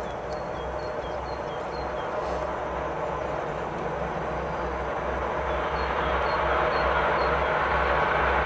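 Diesel locomotive hauling a train of passenger coaches on approach, its engine drone and running noise growing steadily louder. A small bird chirps a run of short high notes twice, near the start and again about six seconds in.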